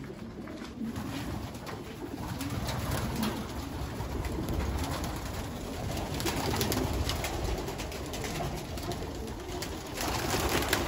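Many racing pigeons cooing together in a loft, with a flutter of wings near the end.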